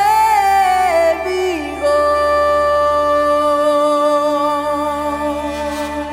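Background music: an early-music recording of a medieval song. A held melody note slides down in a short run, then settles on a long note with slight vibrato over a steady low drone.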